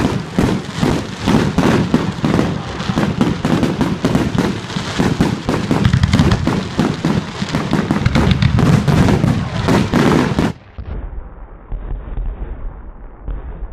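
Firework display: a rapid, dense volley of firework bangs and crackles that cuts off suddenly about ten and a half seconds in, leaving a quieter low rumble.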